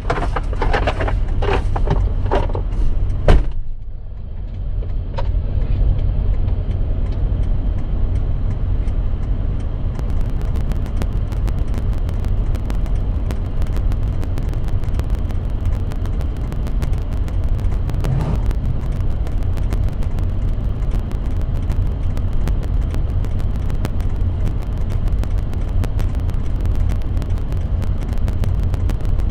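A vehicle engine running with a steady low rumble. There is a single sharp knock about three seconds in.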